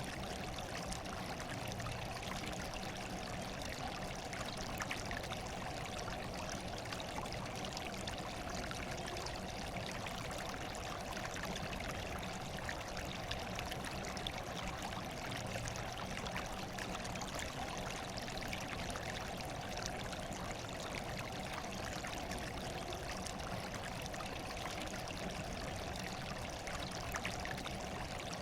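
Running water, a steady stream pouring and trickling without a break.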